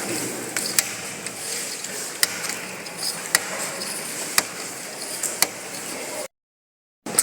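Scattered sharp clicks and small knocks of computer system-unit parts and hardware being handled, over a steady hiss; the sound cuts out completely for under a second near the end.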